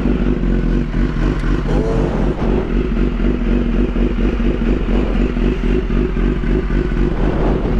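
2016 BMW S1000RR's inline-four engine idling steadily, with a regular mechanical pulse.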